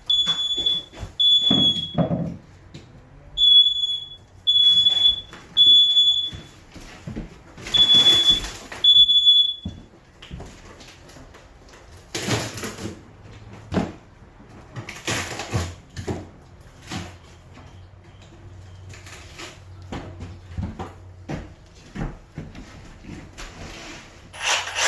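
Smoke alarm sounding: high-pitched beeps in groups of three with short pauses between groups, stopping about ten seconds in. After it come scattered knocks and short noisy bangs.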